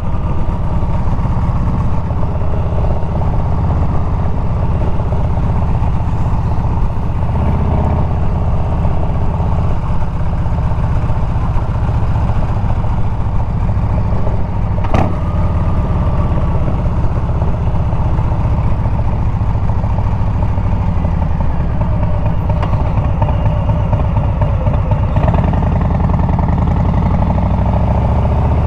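Harley-Davidson Milwaukee-Eight 114 V-twin running through Bassani straight pipes while riding, the exhaust note shifting with throttle and speed several times. A single sharp click about halfway through.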